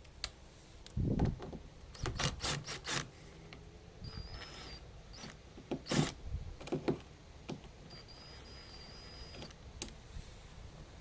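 Cordless screwdriver whirring twice, for under a second and then for about a second and a half, while backing out the fixing screw of a uPVC door's flag hinge plate. Sharp clicks and knocks of handling the hinge and screw come in between.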